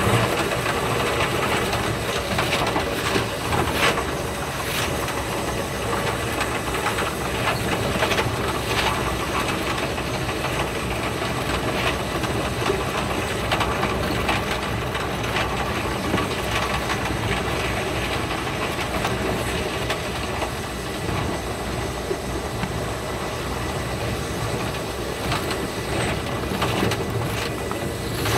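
Running noise of a Thunderbird limited express electric train heard inside the carriage, played back sped up about five and a half times: a steady rushing hiss crowded with rapid clicks of the wheels over the rails.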